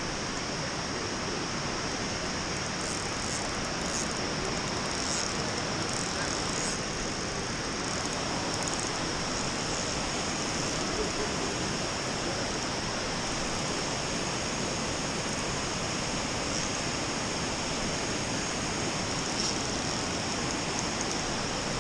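Steady rush of water pouring down a dam spillway into the river, an even noise that does not let up.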